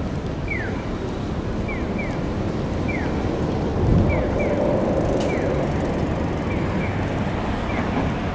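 Japanese audible pedestrian crossing signal chirping a short falling 'piyo' tone, in singles and pairs about one to two a second, over steady city road traffic. A vehicle passes close about four seconds in.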